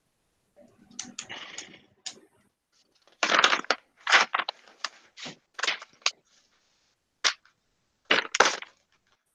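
Sheets of paper being handled and shuffled close to a headset microphone: soft rustling at first, then from about three seconds in a run of sharp, loud rustles and crackles with brief silences between them.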